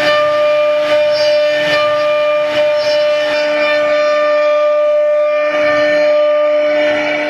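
CNC router spindle running with a steady high whine while its bit cuts a relief carving into wood, the cut adding a rasping hiss. The hiss of the cut eases about three and a half seconds in while the whine holds.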